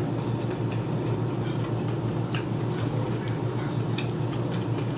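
A person chewing food, with scattered small mouth clicks, over a steady low hum.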